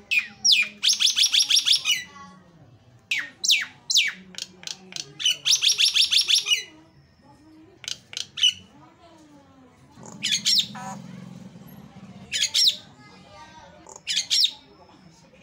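Caged jalak nias (common myna) singing loudly: fast rattling runs of repeated notes and sharp downward-sweeping whistles in bursts, with short pauses between them.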